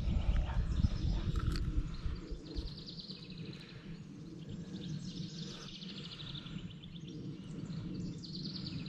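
Outdoor ambience with a repeated rapid, high-pitched trilling call heard several times, over a low rumble that eases after the first couple of seconds.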